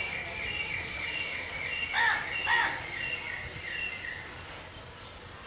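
Birds calling outdoors: a run of short chirps repeating a few times a second, with two louder, harsher calls about two seconds in.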